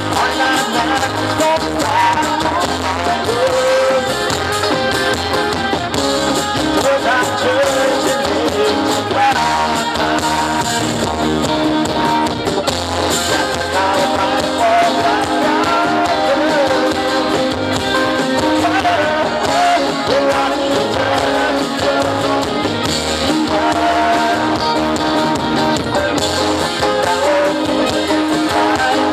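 Live band music led by guitar, playing steadily with a wavering melody line over sustained chords.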